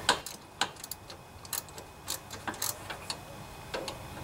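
A dozen or so sharp, irregularly spaced metal clicks and clinks from hand work on the transaxle mounting bolts and nuts of a riding mower.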